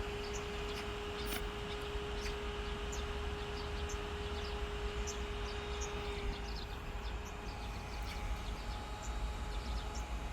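Electric fan running: a steady whoosh of air, with a low rumble where the airflow buffets the microphone and a faint steady hum that stops about six seconds in. Light ticks are scattered through it.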